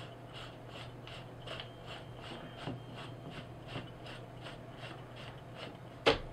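Threaded shroud (suppressor) being screwed by hand onto the barrel of an Airforce Texan big-bore air rifle: faint, evenly repeated scraping of the threads, about three a second. A sharper knock comes a little after six seconds.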